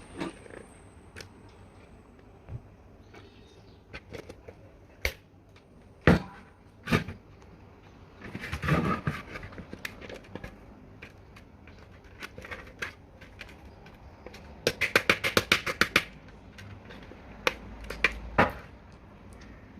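Objects being handled at close range: scattered sharp knocks and clicks, a scraping, rustling stretch a little before the middle, and a quick run of about a dozen rapid clicks about three-quarters of the way in.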